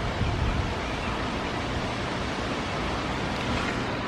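Thunderstorm with damaging winds: heavy rain and wind making a steady rushing noise, with a slight low rumble of a gust at the start.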